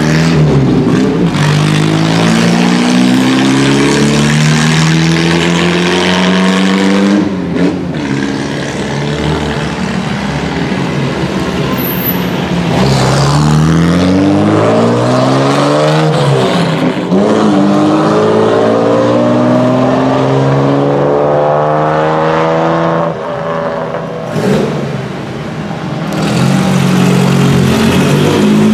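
Engines of open 1950s sports racing cars pulling away one after another. Each revs up through the gears, the note climbing and dropping back at every upshift.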